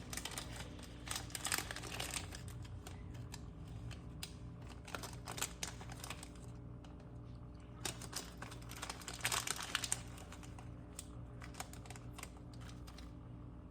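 Irregular light clicks and crinkling of cinnamon being handled and added to the pot, over a steady low hum.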